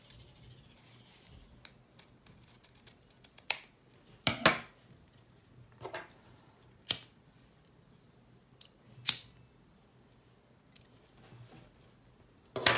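Scissors cutting the ends of grosgrain ribbon: several short, sharp snips spaced a second or two apart.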